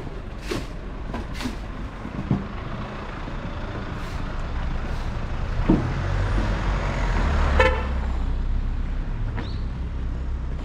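An SUV drives up the narrow street toward the listener and passes close, its engine and tyre noise swelling to a peak a little past halfway, with a brief horn toot at about that peak.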